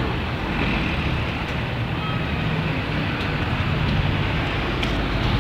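Gasoline engine of an industrial pressure washer running steadily, driving the pump under load while it is tested for leaks at the pump head.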